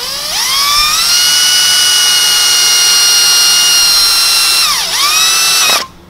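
Cordless drill boring a screw hole for an RV screen door grab handle. The motor's whine rises in pitch as it spins up and then runs steady. About five seconds in it dips in pitch under load and recovers, then stops abruptly.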